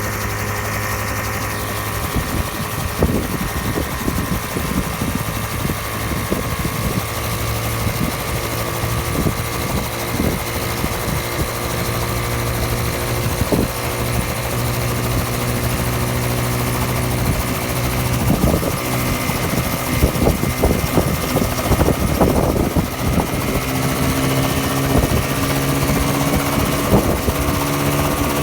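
Micron ultralight coaxial helicopter running steadily, its engine and rotors droning, with gusty buffeting on the microphone. The engine pitch rises slightly near the end.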